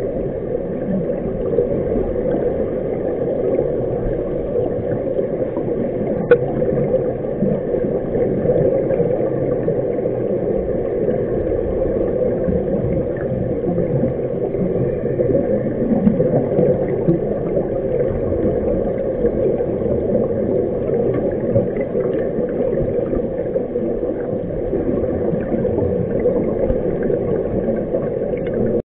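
Steady muffled underwater rumble and gurgle, heard through a camera underwater, with one sharp click about six seconds in.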